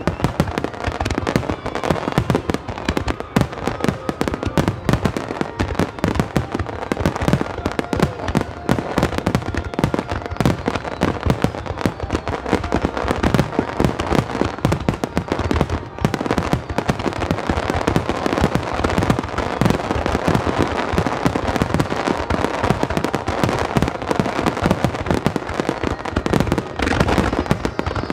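Dense barrage of aerial firework shells bursting in rapid, overlapping succession, many reports a second without a pause.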